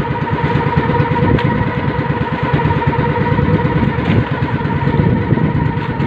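Small engine of an outrigger fishing boat running steadily while the boat is under way, with a constant drone.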